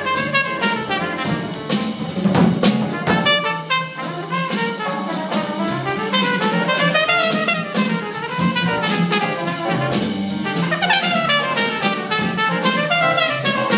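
Small jazz group playing a blues in F: a trumpet improvises a solo in quick runs of notes rising and falling, over a plucked upright bass and a drum kit with cymbals keeping time.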